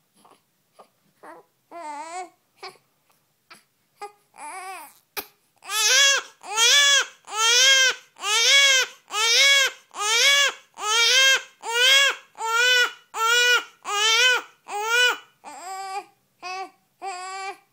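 Two-week-old newborn fussing with short whimpers, then about five seconds in breaking into loud, rhythmic crying: one wail roughly every 0.7 s, each rising and falling in pitch. The cries grow shorter and softer near the end.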